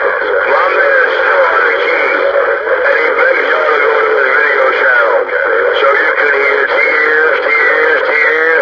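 CB radio receiver audio: voices coming over the channel, thin and narrow-band like a radio speaker, continuous and too garbled for words to be made out.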